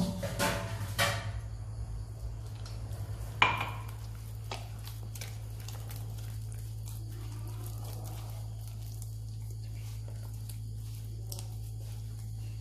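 Hands mixing flour and water into dough in a glass bowl: a few knocks of the bowl and fingers against the glass in the first four seconds, the loudest about three and a half seconds in, then only faint ticks over a steady low hum.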